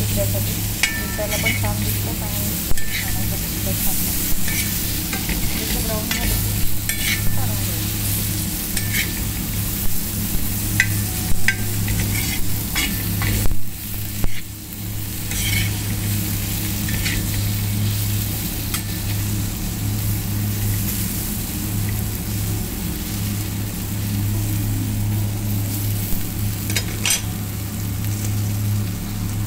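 Paneer cubes shallow-frying in ghee on a tawa, sizzling steadily, while a metal spatula scrapes and turns them against the pan with repeated short scrapes and clinks, mostly through the first half.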